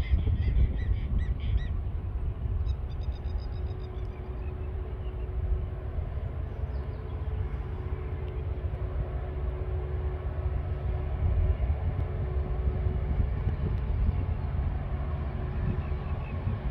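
Distant diesel-electric locomotive working hard up a grade at the head of an empty cement train: a low rumble with a steady drone. Birds call during the first few seconds.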